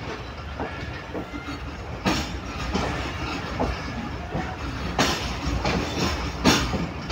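Passenger train coach wheels rolling slowly over rail joints as the train pulls out of a station. A steady low rumble is broken by several irregular sharp clacks.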